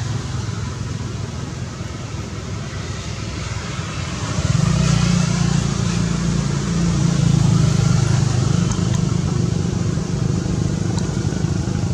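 Low, steady rumble of a motor running, which grows louder about four seconds in.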